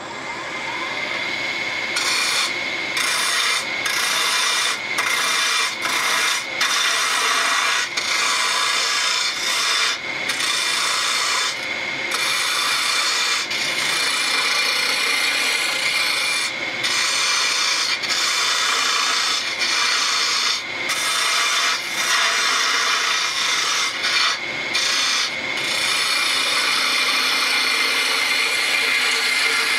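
Wood lathe turning a spindle blank while a hand-held turning tool cuts it: a continuous hissing, scraping cut broken by many short gaps.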